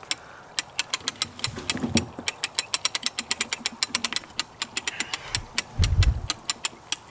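Hand-cranked Skywinch hauling in rope under load, its ratchet clicking rapidly and evenly as the crank turns. Low thuds come about two seconds in and again near six seconds.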